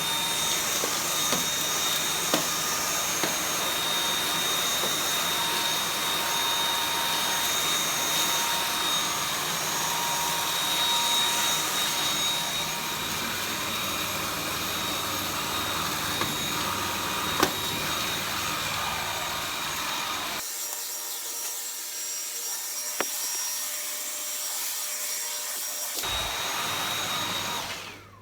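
Dyson V8 cordless stick vacuum running at a steady high whine while vacuuming dust from a floor corner, with a few sharp ticks. It is switched off just before the end.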